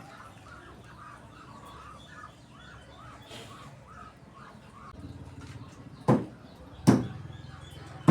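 Repeated short bird calls, chicken-like clucking and chirping. About five seconds in a low steady hum starts, and two loud sharp knocks come near the end.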